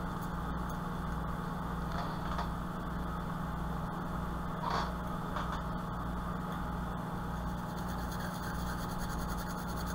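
Steady low electrical hum with a slight regular pulse, and a few faint light taps around the middle.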